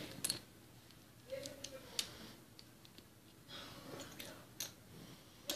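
Plastic Lego bricks clicking sharply a few times as they are handled and pressed together, with a few short vocal sounds between the clicks.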